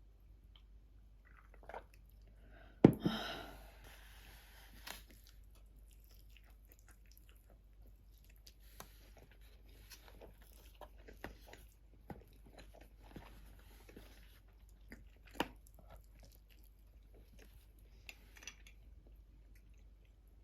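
Crunchy chewing and biting of food close to the microphone, with scattered small clicks. About three seconds in, a sharp snap is followed by a short hiss that fades over a second or so.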